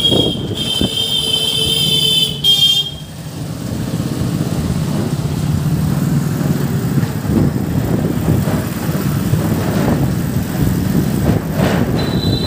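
A vehicle horn sounds for about two seconds, then gives a short second toot, over a steady low rumble of road traffic and wind on the microphone; another horn starts near the end.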